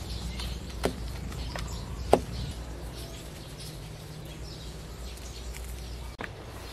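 Gloved hands working chicken pieces in a dry flour coating in a stainless steel tray, with two sharp knocks about one and two seconds in, the second louder. Birds chirp faintly over a steady low hum that cuts out near the end.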